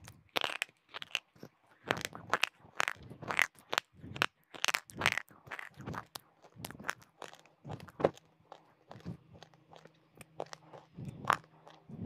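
Close-miked crunching of a hard white chalky stick bitten and chewed in the mouth: sharp, brittle crackling crunches in quick clusters, with a few louder bites among them.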